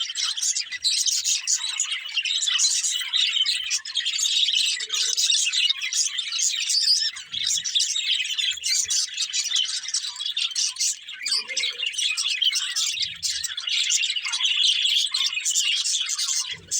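Budgerigars chirping, a dense, unbroken stream of quick high-pitched chirps.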